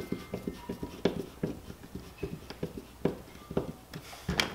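Hand screwdriver tightening the screw of an old-work wall-plate bracket in drywall: a run of small irregular clicks and scrapes as the bracket's rear tab draws forward and snugs against the wall. A slightly louder knock or two near the end.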